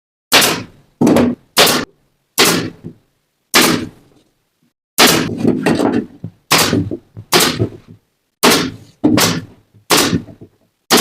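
Hammer blows on wood, about a dozen sharp knocks at an uneven pace with a short pause just before the middle.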